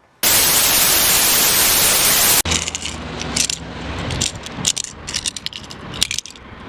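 A loud, even hiss like TV static for about two seconds, cut off abruptly, followed by a clattering run of sharp clicks and metallic jangling rattles.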